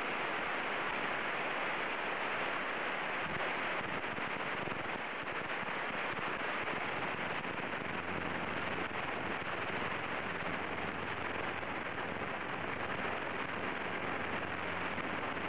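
Diamond DA40's engine and propeller at full takeoff power during the takeoff roll, a steady dense noise in the cockpit. A low hum becomes plainer about halfway through as the plane gathers speed.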